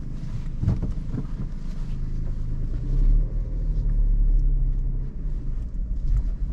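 Suzuki Alto 660cc three-cylinder engine running as the car moves at low speed, heard from inside the cabin with low road rumble. The engine pulls a little louder about three seconds in, then eases off.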